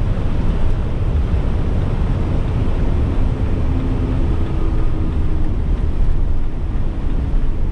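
Steady road noise heard from inside a vehicle's cabin at highway speed, with a faint hum through the middle from the freshly fitted winter tires.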